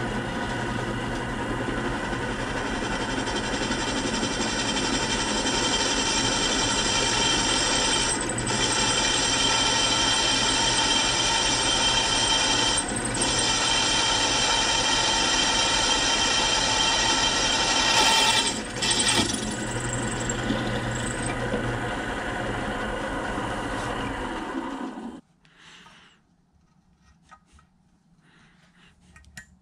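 Drill press running steadily as a twist bit drills a hole through a painted metal lathe switch bracket, with a few brief dips, then stopping abruptly about 25 seconds in; faint handling sounds follow.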